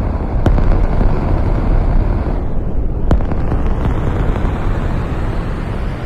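Kick drum sample fed through the Valhalla Supermassive delay in Hydra mode, with high warp and feedback, turning into a dense, continuous rumble like a rocket or spaceship engine. The delay time is being turned down. Two sharp clicks stand out, one about half a second in and another about three seconds in.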